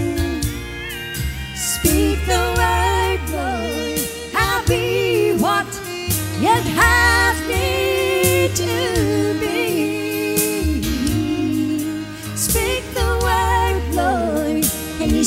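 Country-gospel song: women's voices singing with vibrato and sliding notes over a backing track with bass and drums.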